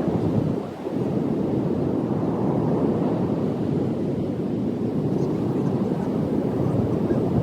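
Wind buffeting the microphone: a steady, low rushing noise with a brief dip a little under a second in.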